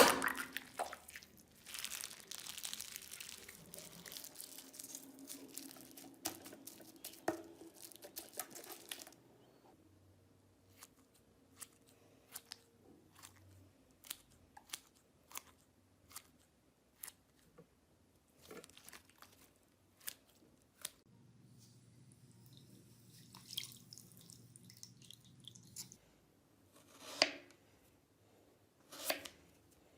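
Slime being squeezed and poked by hand: a dense stretch of crackling for about the first nine seconds, then scattered sharp clicks and pops, with three louder pops near the end.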